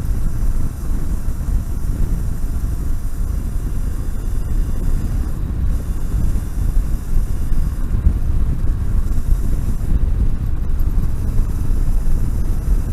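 Wind buffeting the microphone with road noise, from a motorcycle riding at city-street speed. It is an electric conversion, so there is no engine note.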